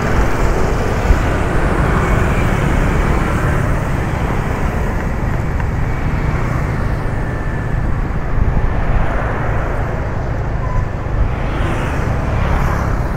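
Steady city road-traffic noise: the engines and tyres of moving vehicles.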